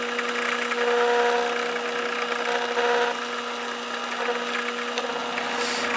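Benchtop drill press running steadily, its bit cutting into a hardwood knife-handle block held freehand. The cutting noise grows louder about a second in and again near three seconds.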